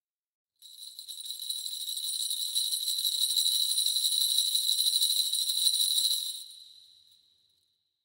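Kagura suzu, a Shinto bell tree of small metal pellet bells hung in rings on a handle, shaken continuously. The jingling starts about half a second in and grows louder for about six seconds, then stops and rings away.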